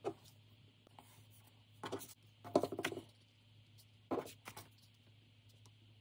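Soft rustles and taps of paper squares being handled and pressed down while gluing. They come in a few short bursts, the clearest about two and a half seconds in and again about four seconds in, over a faint steady hum.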